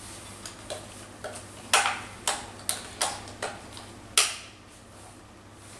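Sharp plastic clicks and knocks, about nine of them at uneven intervals, two loudest near two and four seconds in, as AA batteries and the battery cover are worked back into a drone's handheld controller. The cover is fiddly to refit over the batteries.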